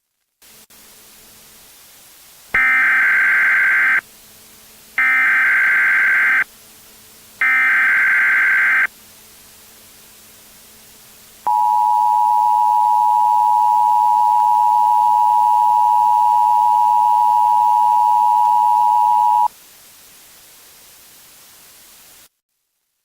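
Emergency Alert System tones: three short bursts of screeching SAME digital header data, a pause, then the two-tone EAS attention signal held steady for about eight seconds, over a faint hiss and hum. Together they open a simulated EAS tornado warning test.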